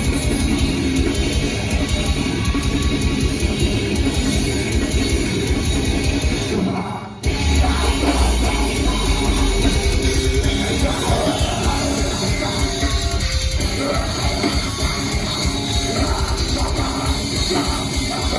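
Metalcore band playing live: distorted electric guitars, bass and drums at full volume. The band drops out briefly about seven seconds in, then comes back in with a deep, heavy low end.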